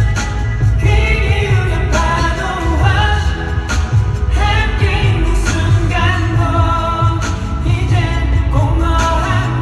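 Male singer performing a pop song live over an amplified band track with heavy bass, recorded from the audience.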